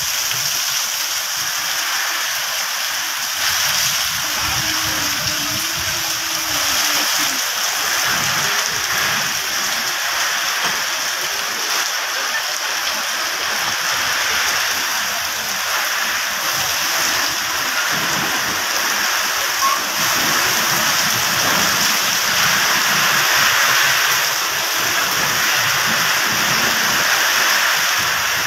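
Heavy rain pouring down in a downpour, a loud steady hiss that keeps up throughout.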